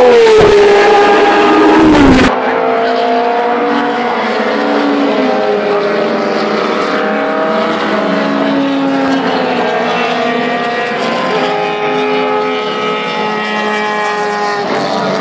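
Historic Formula One racing car passing close at high revs, its engine note falling steeply as it goes by, then breaking off abruptly about two seconds in. After it, several racing engines run farther off around the circuit, their notes rising and falling through the gears.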